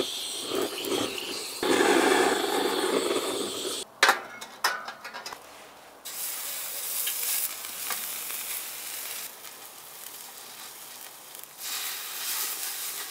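A handheld butane torch blows its flame onto charcoal in a kettle grill, a steady rush that cuts off suddenly about four seconds in. Then a few clicks of metal tongs, and pork belly sizzling in a perforated grill pan over the hot coals.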